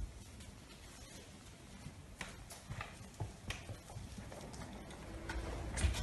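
Scattered light taps and scrapes as a kitten with a sheet of paper stuck on it scrambles over a wooden parquet floor, with a louder thump near the end.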